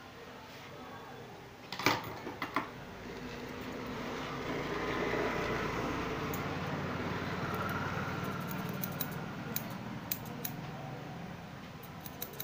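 Barber's scissors snipping at a mustache: a run of short, sharp snips in the second half. A sharp click comes about two seconds in, and a steady rushing noise swells and fades in the middle.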